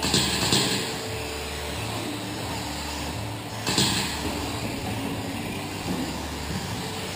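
Electric 1/10-scale 2wd RC buggies with 17.5-turn brushless motors running on an indoor dirt track, over a steady low hum, with two short louder bursts of hiss near the start and about three and a half seconds in.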